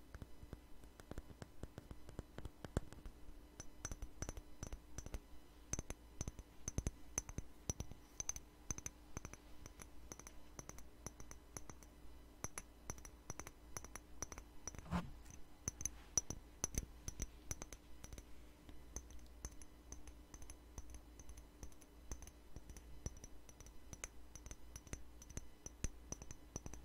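Fast, irregular finger tapping on a clear bottle held close to the microphone: many small sharp clicks with a faint high ring, and one heavier knock about halfway through.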